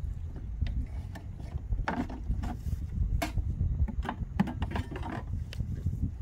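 Irregular clicks, knocks and rubbing from handling a bundle of coiled flexible pump hoses and a hoe, over a low rumble.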